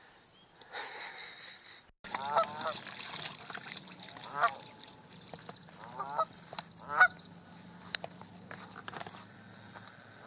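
A flock of Canada geese honking on the water: short, nasal calls repeated every second or two, starting about two seconds in.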